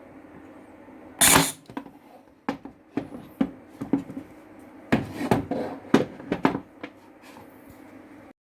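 A series of sharp knocks and clatters of hard parts and tools being handled, the loudest about a second in and more in clusters after, over a steady low hum.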